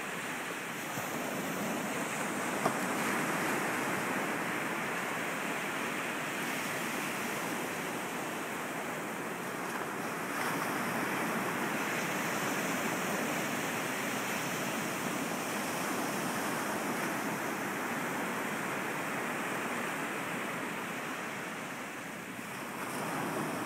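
Small ocean waves breaking and washing up a sandy beach. A steady rush of surf that swells and eases, dropping off briefly near the end.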